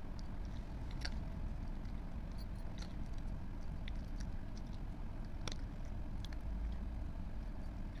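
Cat crunching dry kibble quickly, with scattered sharp crunches at an irregular pace over a steady low rumble.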